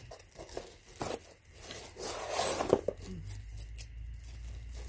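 Cardboard rifle box and its packaging being opened and handled: irregular rustling, scraping and tearing of cardboard with a few sharp clicks, loudest about two to three seconds in.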